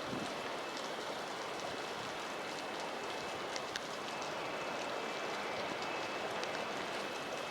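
Torrential typhoon rain pouring steadily, with water streaming along a flooded road and scattered sharp ticks of drops striking close by.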